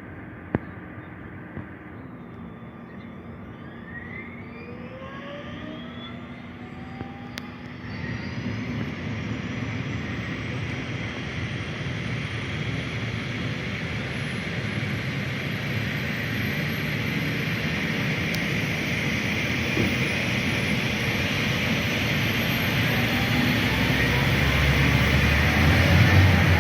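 Helicopter turbine engines spooling up at start-up: a whine climbs steadily in pitch while the engine and rotor noise builds louder and louder.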